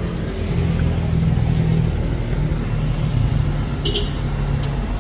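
A motor vehicle's engine running steadily with a low hum, a little louder from about half a second in, with a few sharp clicks near the end.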